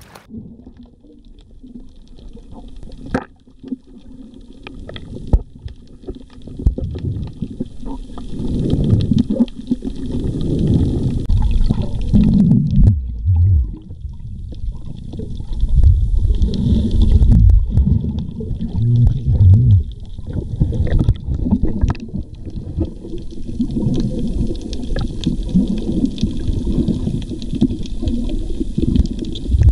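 Muffled, irregular rumbling and gurgling of water heard from below the surface through a waterproof camera housing, with a few sharp clicks. It is quieter at first and grows louder about six seconds in.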